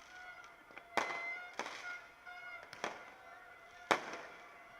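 Fireworks bursting overhead: four sharp bangs in under four seconds, the last the loudest, with steady horn-like tones sounding between them.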